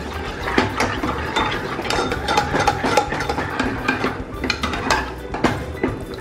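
Steel ladle stirring and scraping cooked dal inside a metal pressure cooker, with irregular clinks of metal on metal.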